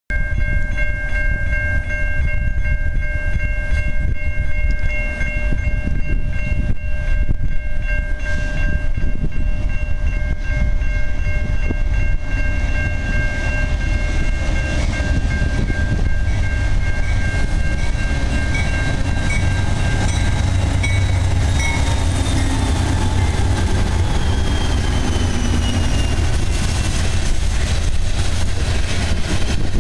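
Freight train approaching and passing, led by GE Dash 9-44CW diesel locomotives: a multi-note air horn chord holds steady for about the first twenty seconds, then fades, over a continuous low rumble of engines and wheels. Near the end a falling tone sounds as the locomotives come close.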